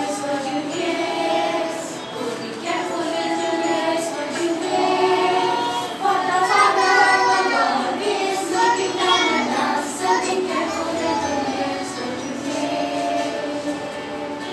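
A group of young children singing together, as a chorus.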